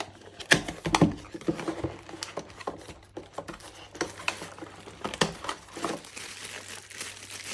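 A security-camera box being opened and unpacked by hand: cardboard and plastic packaging rustling and crinkling, with scattered taps and clicks; the crinkling grows steadier near the end.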